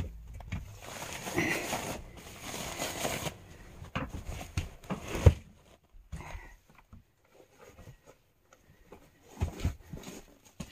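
Rustling, crinkling handling noise for about three seconds, then a few scattered soft knocks and thumps.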